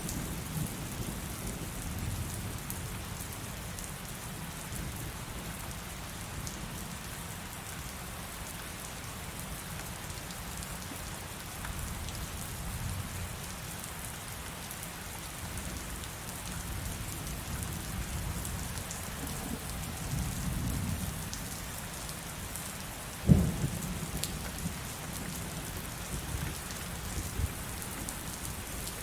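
Heavy rain falling steadily, with low rolling thunder and one sharp, loud thunderclap about 23 seconds in.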